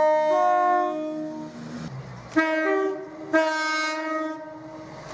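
Train horns sounding chords of several notes. A long blast changes note just after the start and fades out about a second and a half in, over a low rumble. Then come two separate short blasts about a second apart.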